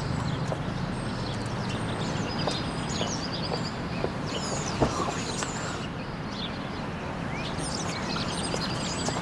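Birds chirping and twittering over a steady background rumble, with one sharp knock about five seconds in.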